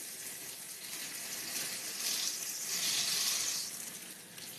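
Breaded green tomato slices shallow-frying in hot oil in a pan: a steady sizzle that swells louder for about a second and a half in the middle, then eases.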